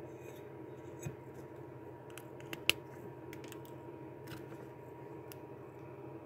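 Light taps and a scatter of sharp little clicks as craft supplies, markers and a tile, are handled and set down on a table, one click louder than the rest about two and a half seconds in, over a steady room hum.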